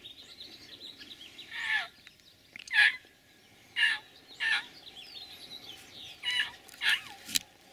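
A coyote barking: about six short, loud barks, each dropping sharply in pitch, roughly a second apart, with a sharp click near the end.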